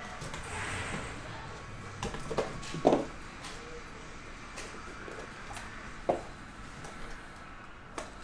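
A box cutter slitting the seal on a trading-card box, then a few sharp taps and knocks as the cardboard box and its tin case are handled, the loudest about three seconds in.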